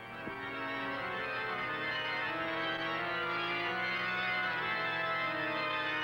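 Organ music: slow, long-held chords that swell in over the first second and change every second or two.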